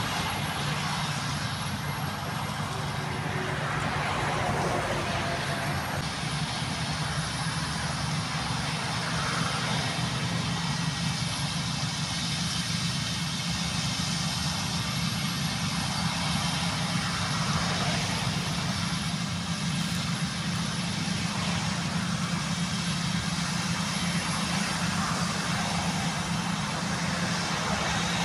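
Farm machinery running steadily: a Claas combine harvester at work harvesting grain, with a tractor and grain trailer standing by close at hand. A constant low engine hum under a wide, even noise, with no change in pace.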